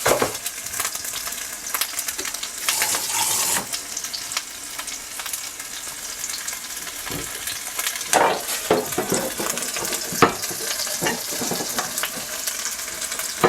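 Frozen chopped green onions sizzling in plenty of hot oil in a pan: a steady hiss broken by many sharp crackles and clicks, thickest about two-thirds of the way through. The moisture in the frozen onion makes the oil spit.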